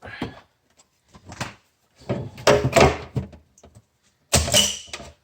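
Plastic housing pieces of a food vacuum sealer being pried loose and handled during disassembly: a series of knocks and clattering, with a longer rattle in the middle and a sharper knock with a brief squeak near the end.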